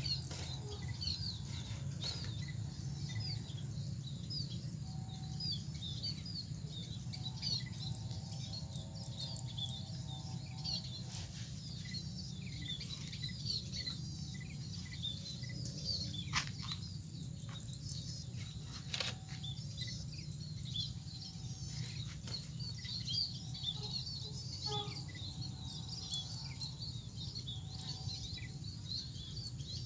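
Rural ambience of many small birds chirping continuously in short high calls, over a low steady background rumble, with a couple of sharp clicks partway through.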